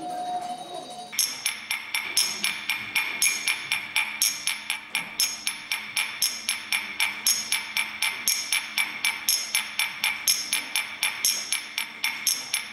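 Rhythmic percussion beat of short, sharp strikes, about four a second, setting in about a second in and keeping an even pulse.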